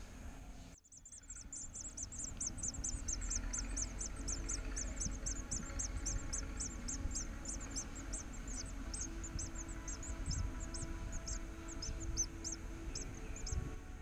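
Nestling cinereous tits begging in the tree-hole nest: a fast run of short, high-pitched cheeps, about four a second, that slows and grows irregular near the end.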